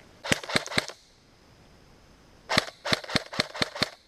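Electric airsoft rifle (AEG) firing in two strings of rapid shots: about five quick shots, a pause of about a second and a half, then about nine more.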